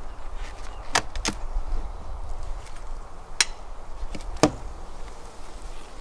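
Metal hive tool prying the inner cover off a wooden beehive box: a few sharp cracks as the propolis seal gives way, over a steady hum of honeybees.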